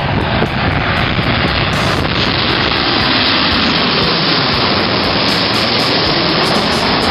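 Boeing 737 jet airliner passing low overhead on landing approach, its twin CFM56 turbofan engines making loud, steady jet noise with a deep rumble underneath.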